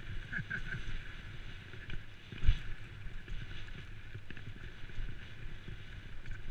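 Downhill mountain bike rolling fast over a loose rocky trail: tyres crunching over the stones and the bike rattling with many small knocks, and one hard knock about two and a half seconds in.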